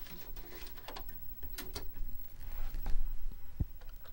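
A 5.25-inch floppy disk sliding into a Commodore floppy drive and the drive door being latched shut: light scraping and a few sharp plastic clicks, then a single dull thump near the end.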